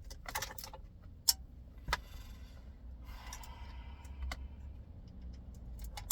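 Sharp plastic clicks and rattles of wiring connectors being handled and plugged into the back of an aftermarket car radio, with a brief rustle about three seconds in and a low steady hum underneath.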